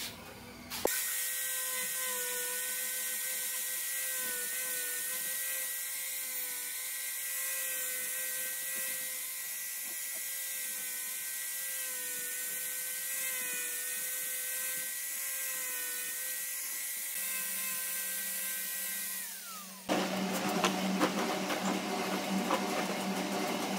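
Handheld angle grinder with a sanding disc running steadily with a high whine as it sands the edge of a pine board; its pitch drops and it stops about 19 seconds in. After that come light clicks and knocks from handling.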